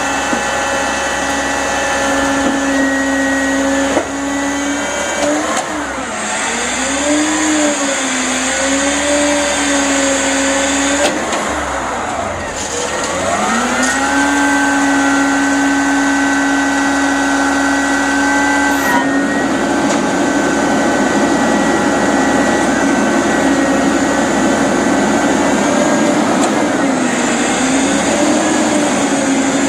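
Peterbilt garbage truck's engine and hydraulics working during a pickup. A steady machine whine dips and swings in pitch twice as the engine speed changes, then holds steady. About two-thirds of the way through, a rushing noise joins it.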